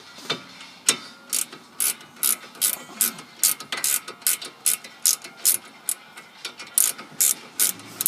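Hand ratchet wrench backing out an already-loosened brake caliper bracket bolt, its pawl clicking on each back-stroke of the handle, about two sharp clicks a second.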